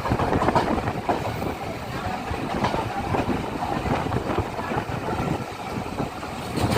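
Yal Devi passenger train running on the rails: a steady rumble with irregular knocks and rattles from the wheels and carriages.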